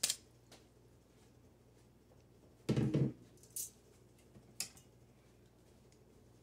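Metal kitchen tongs clicking against a plastic colander and bowl as the glass noodles are set down. After that there are only a few sparse light clicks and one short, low sound about three seconds in, over a quiet room.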